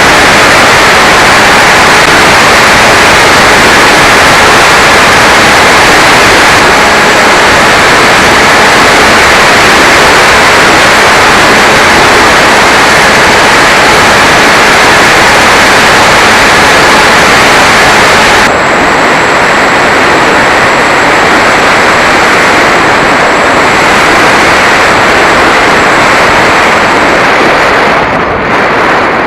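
Loud, steady static-like hiss from an RC plane's FPV flight recording, with faint thin whines running through it. The hiss changes tone abruptly twice, turning duller about seven and eighteen seconds in.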